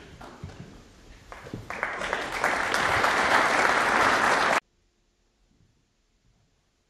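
Snooker audience applauding a pot. The clapping builds over a couple of seconds and then cuts off suddenly about four and a half seconds in.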